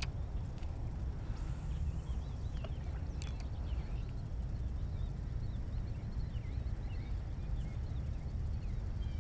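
Steady low rumble of wind on the microphone, with small birds chirping repeatedly in the background.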